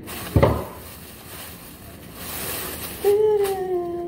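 A single sharp knock about half a second in, a soft hiss around the middle, then a woman starts humming a held, slightly falling note about three seconds in.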